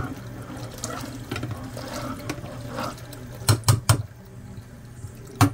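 Kitchen tap running into a sink, with water splashing as food is rinsed, followed by a few sharp knocks about three and a half seconds in and again near the end.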